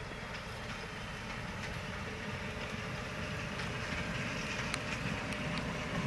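PKP class SM42 diesel locomotive hauling a passenger car past: the diesel engine running with scattered clicks of the wheels on the rails, growing louder as the train approaches.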